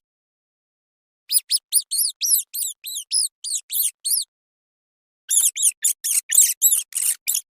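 Rat squeaking: after a second of silence, a quick run of about a dozen short, high squeaks, each rising then falling in pitch; then, after a pause of about a second, another faster run of squeaks near the end.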